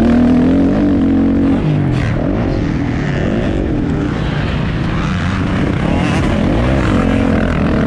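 Motocross dirt bike engine being ridden, revving up and dropping off over and over, its pitch rising and falling every second or two.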